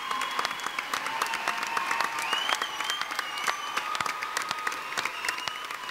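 Large audience applauding in a big hall: sustained applause with many individual sharp claps.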